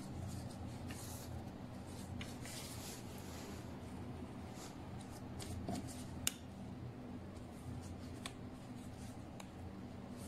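Light kitchen handling sounds: faint rustling of flatbread and paper with scattered soft clicks, the sharpest a little past the middle, over a steady low hum.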